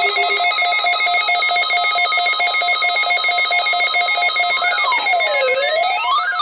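Weather radio warning alarm signal: a rapid, ringing electronic pulse over several steady high tones. A low tone drops out about half a second in. About three-quarters of the way through, a siren-like wail joins, rising and falling roughly every second and a half.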